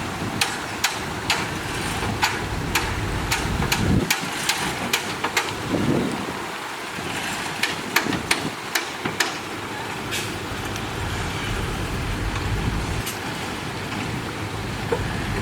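Dump truck engine running, with scattered sharp clicks and knocks over roughly the first ten seconds.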